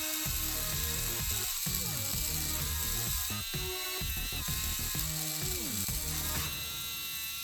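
Small geared drive motors of a hobby RC car whining as it is driven, speeding up and slowing down in short spurts, with the pitch sliding down as the motors spin down.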